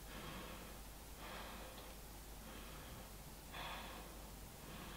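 A woman's slow, calm breathing, faint: two soft breaths, the first about a second in and a shorter one near the end, over quiet room tone.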